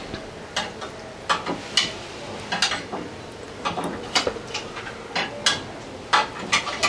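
Eating by hand from a plate: a scatter of small, sharp clicks and clinks, about a dozen, coming at uneven intervals, from fingers, bangles and plate together with chewing.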